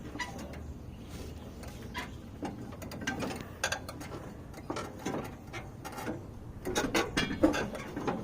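Irregular clicks and light metal knocks from a new drive belt being worked around the pulleys and guards under a Troy-Bilt Pony riding mower's deck. The clicks get busier and louder near the end.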